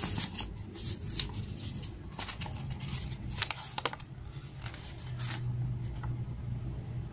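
A printed paper sheet being unfolded and smoothed out by hand, crackling and rustling in a run of sharp crinkles that die away about five seconds in, over a steady low hum.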